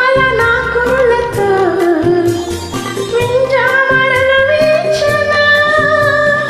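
A woman singing a Telugu film-song melody in long, gliding held notes over a karaoke backing track with a steady beat.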